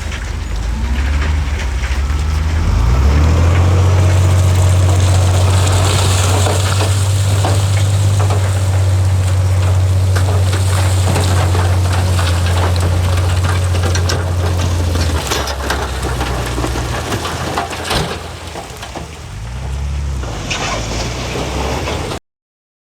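Heavy diesel engine of earthmoving machinery running hard at a steady pitch, then easing off about fifteen seconds in. Scattered knocks and crunches of rock or dirt are heard over it. The sound cuts off abruptly just before the end.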